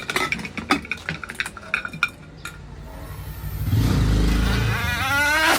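Sharp metallic clinks and knocks of cookware being handled during a cooker repair. Then a louder low rumble sets in, with a rising pitched tone near the end.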